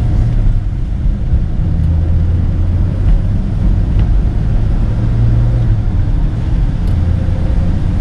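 Rover P4 100's straight-six engine running as the car is driven, a steady low drone whose pitch shifts up and down a few times.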